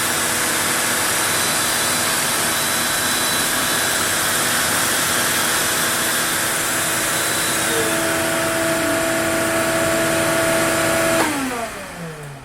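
CNC router spindle and dust-extraction vacuum running steadily with a high whine, then switched off about eleven seconds in, falling in pitch as they spin down.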